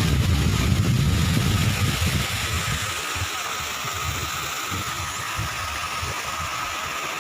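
Motorcycle engine running, louder for the first couple of seconds and then easing to a steadier, quieter run, with a steady high-pitched tone behind it.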